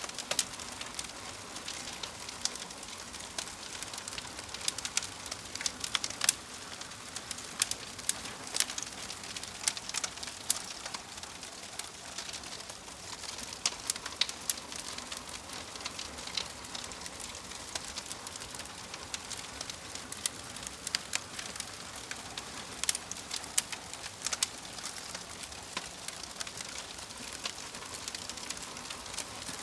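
Logs burning in a fireplace, crackling and popping: a steady soft hiss with frequent irregular sharp pops, some of them louder.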